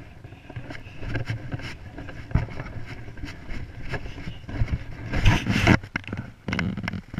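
Wind noise on the microphone of a small action camera. About five seconds in come loud rubbing and knocking as the camera is handled and its lens is covered.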